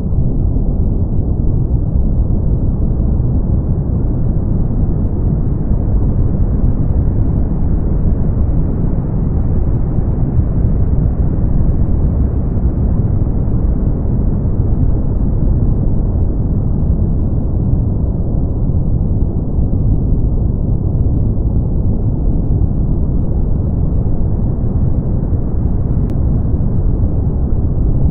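Brown noise: a steady, even hiss with most of its weight in the deep bass, dying away in the treble. The top of it swells slightly and ebbs back over several seconds.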